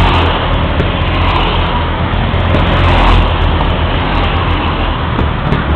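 Several go-kart engines running as a line of karts passes on the straight: a loud, steady engine noise.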